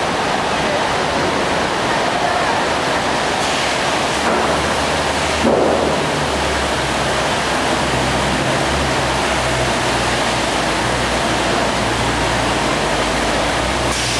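Sawmill machinery running inside the mill hall: a loud, steady noise, with a low hum coming in about five seconds in and a single knock around then.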